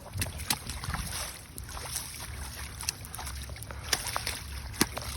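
Low wind rumble on a phone microphone in the rain, with many irregular sharp taps, such as raindrops striking it or wet steps.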